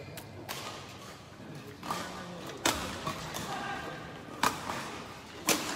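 Badminton rackets striking a shuttlecock back and forth in a doubles rally: about five sharp cracks, unevenly spaced, over faint background voices.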